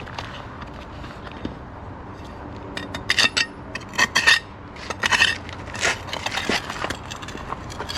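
Red clay pavers being dug up: steady scraping, then a quick run of sharp clinks and knocks of brick on brick and tool on brick from about three to six and a half seconds in.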